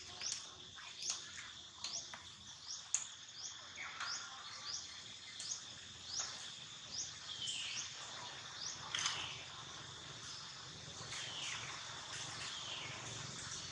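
Birds chirping: a run of short, quickly rising high chirps, one every half to three-quarters of a second, that stops about nine seconds in, with a few longer falling calls after it and a steady high tone underneath throughout.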